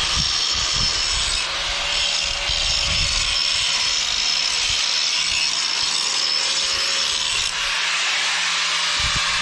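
Power tool running steadily under load, a continuous cutting or grinding noise with no break.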